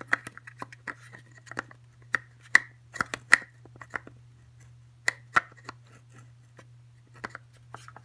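Parts of a Tacamo Blizzard magfed paintball marker's body being handled and fitted together: a run of sharp clicks and taps, the loudest about two and a half, three and a half and five seconds in.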